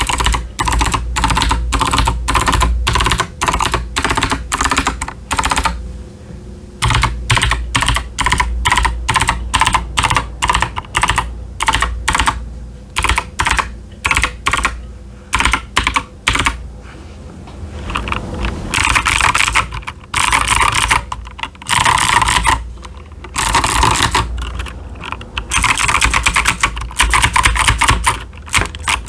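Typing on an Akko 5075s mechanical keyboard with TKC Blackberry clicky switches and doubleshot PBT keycaps: a fast, steady clatter of sharp clicky keystrokes. In the last third it comes in longer, denser bursts of very rapid keystrokes.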